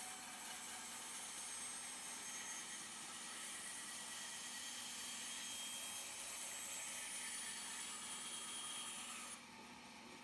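Steady whir of woodworking machinery running, with thin high whining tones over it. The sound drops off sharply a little after nine seconds in.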